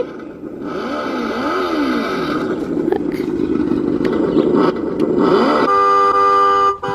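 Electronic sound effects from a red Corvette Power Wheels ride-on toy car's speaker: a revving engine sound that rises and falls in pitch, then a steady electronic tone about six seconds in that cuts off near the end.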